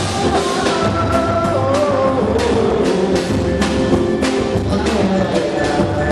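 Live band playing a pagode song, with a drum kit and percussion keeping a steady beat under held melody notes.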